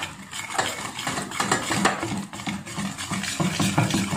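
Wire whisk beating flour into thickened milk in a stainless steel bowl: quick, continuous strokes of the wires scraping and clattering against the bowl while mixing a thick batter.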